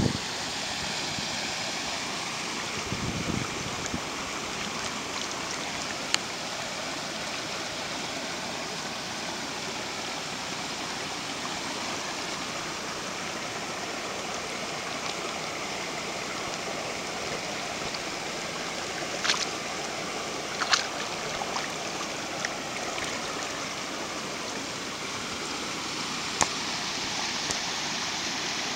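Shallow rocky river running steadily over gravel and stones, with water spilling down a small cascade of boulders. A few brief sharp clicks stand out over the steady rush, the loudest about two-thirds of the way in.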